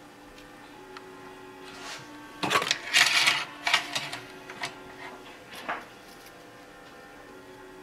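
Small hard objects rattling and clicking as they are handled on a workbench: a cluster of sharp clatters lasting about three seconds around the middle, over faint steady background tones.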